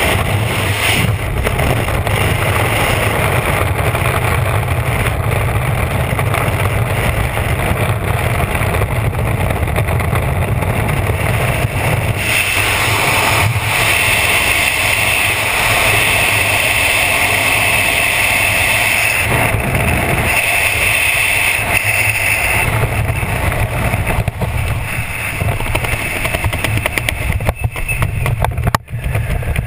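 Freefall wind rushing over a GoPro's microphone, loud and steady, with a hissier edge for several seconds in the middle. Near the end it drops in level and turns gusty and uneven.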